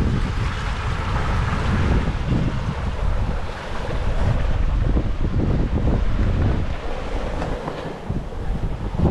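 Strong wind buffeting the microphone in gusts over the rush of breaking water and foam along a sailboat's hull, in 30-plus-knot winds and big swells.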